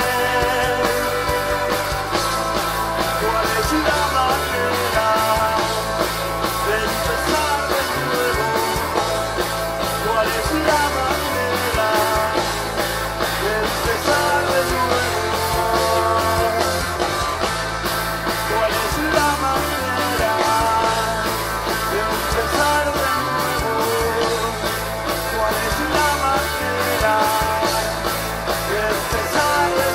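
Rock band playing live: electric guitars over bass and a steady drum beat.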